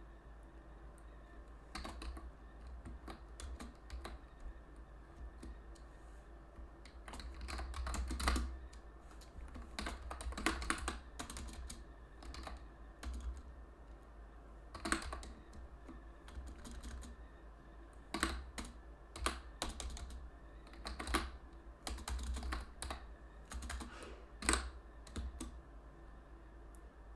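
Computer keyboard being typed on: irregular runs of key clicks with short pauses between them, over a steady low hum.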